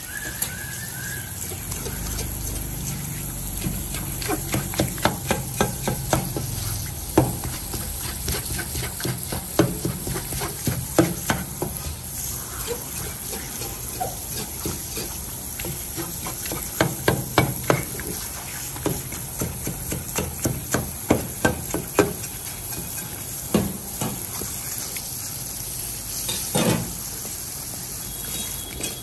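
Water spraying from a kitchen faucet's spray head onto a whole fish on a plastic cutting board, with runs of quick scraping strokes as a cleaver scales the fish under the stream.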